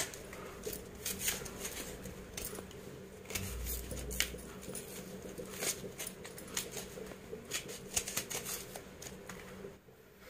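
Dry, papery skins being peeled by hand off red onions, crackling and rustling in irregular small clicks that stop near the end.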